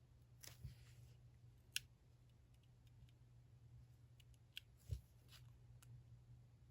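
Faint paper and stationery handling during diary decorating: a few short soft rasps and several sharp light clicks, over a steady low hum.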